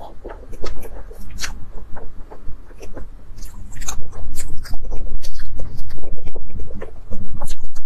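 Close-miked eating sounds of soft chocolate mousse cake being chewed: many quick mouth clicks and smacks that grow denser and louder about four seconds in.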